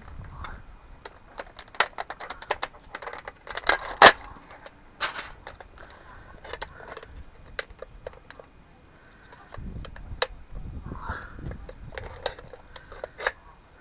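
Hard plastic and small metal parts of a CD/DVD drive clicking, clacking and snapping as it is pried and pulled apart by hand, with one sharp crack about four seconds in.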